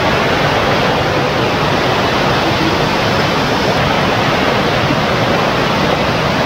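Waterfall cascading over rock slabs: a loud, steady rush of water.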